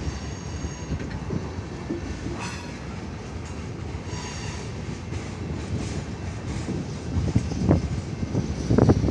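Freight train rolling past: a steady rumble of railcars, with brief high wheel squeals a few times, and rail-joint clacking that gets louder near the end.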